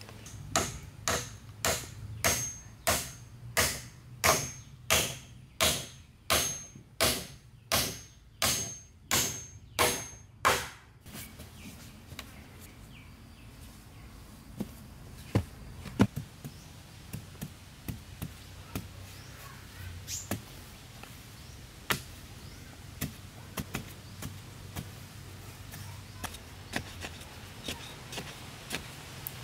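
A tool striking wood hard and fast, about two blows a second for roughly ten seconds, each blow ringing briefly. After that come only scattered light knocks and clicks.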